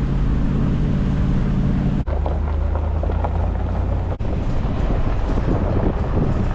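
Ram 2500 Power Wagon pickup driving on a forest road: steady engine and road noise. The sound changes abruptly twice, about two and four seconds in.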